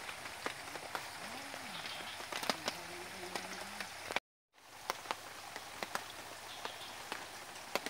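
Outdoor pond ambience: a steady hiss scattered with light clicks and crackles, with faint distant voices in the first half. The sound cuts out completely for a moment about halfway through.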